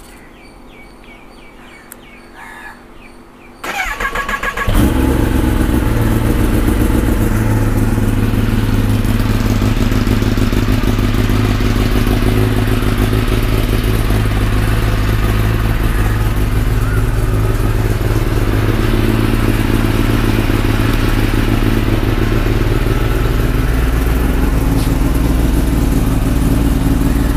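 Kawasaki Ninja ZX-10R inline-four motorcycle engine cold-started: a few faint clicks, then the starter cranks for about a second, the engine catches, and it settles into a loud, steady idle to warm up.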